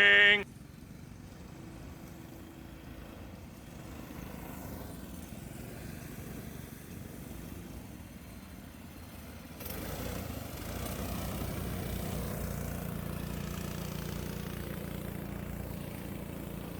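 Go-kart engines running steadily in the distance, with a low hum under track noise. The sound gets suddenly louder about ten seconds in.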